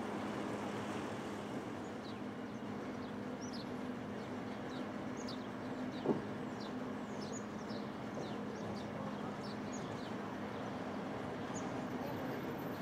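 Brill railcar being turned on a turntable: a steady low mechanical hum, with small birds chirping in short high falling notes throughout and a single sharp clank about six seconds in.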